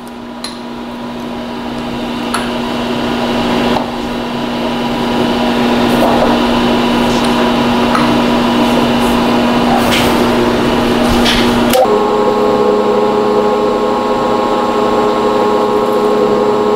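Milling machine spindle running with a steady hum, growing louder over the first few seconds, with a few light clicks as the copper jaw is set against the stop. About twelve seconds in, the tone changes suddenly to a higher, stronger whine as the five-flute countersink cuts into the gummy copper jaw.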